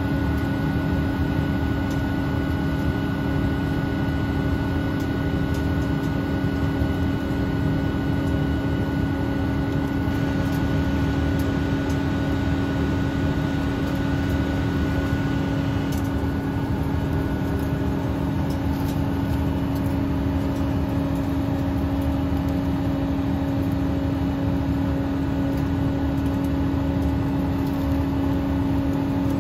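Combine harvester with its corn head running in a corn field: a steady engine and machinery hum with a constant droning tone and a fainter high whine, unchanging in level.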